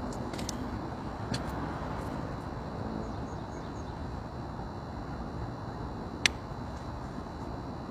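Steady outdoor background noise with a low hum of distant road traffic, and a single sharp click about six seconds in.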